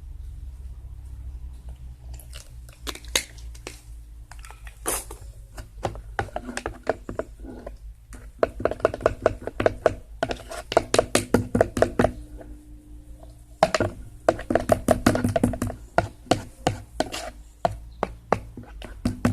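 Glue-and-water slime mixture being stirred briskly in a container, making quick clicking taps about five a second, in two spells starting about eight and fourteen seconds in.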